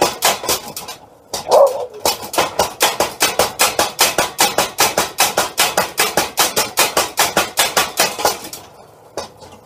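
Homemade electric tyre-type power hammer pounding hot steel in a rapid, even run of blows, about six a second, during a forge-weld attempt. The blows stop briefly about a second in, when a single short louder sound is heard. They then resume and slow to a stop near the end.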